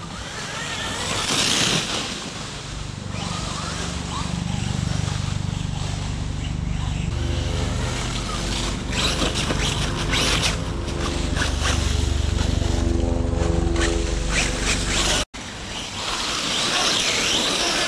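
FTX Carnage RC truck with a brushless motor, driving over grass and leaves. Its motor and gears give a whine of several tones held at a steady pitch through the middle, with rushes of hiss near the start and near the end.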